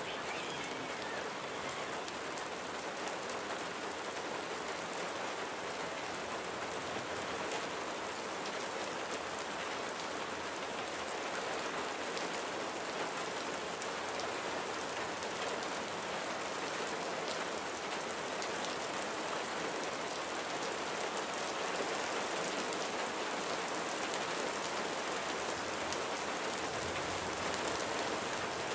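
A steady, even hiss with faint scattered ticks.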